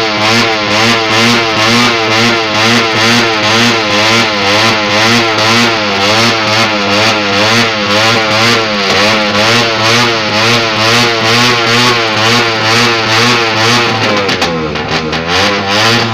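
Suzuki Raider motorcycle engine being revved hard while stationary, the revs swinging up and down about twice a second. A little after two-thirds of the way through, the revs drop briefly and then climb again.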